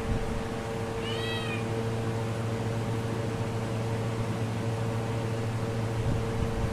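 A cat gives one short, high-pitched meow about a second in, its pitch rising and then falling. A steady low electrical hum runs underneath.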